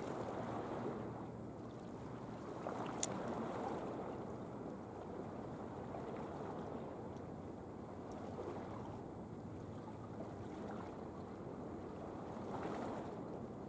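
Sea water lapping and sloshing against a breakwater, swelling and easing every few seconds, with one sharp click about three seconds in.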